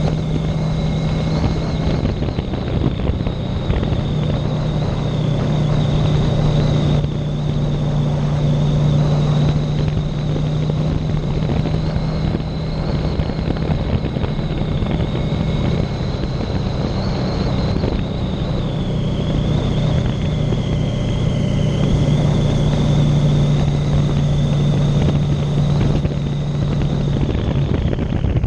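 Motorcycle riding at a steady cruise: its engine running with a steady low note that eases off briefly now and then, under a constant wash of wind and tyre noise.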